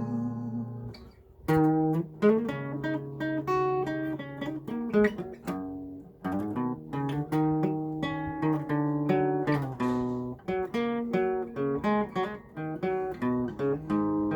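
Solo acoustic guitar in an instrumental passage, picked note by note with the notes left ringing. An opening chord dies away and the playing drops out briefly about a second in, then the picking resumes and runs on.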